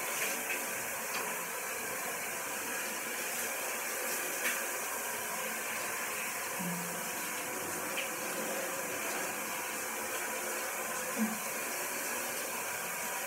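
Water spraying steadily from a handheld shower head as a dog is rinsed in a shower.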